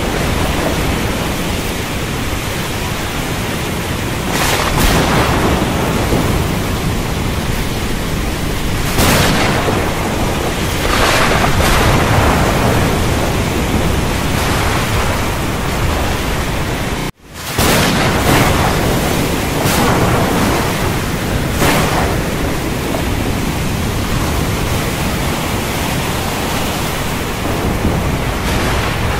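Thunderstorm ambience over the sea: a steady roar of rain and wind with louder surges every few seconds. The sound cuts out abruptly for a moment just over halfway through, then resumes.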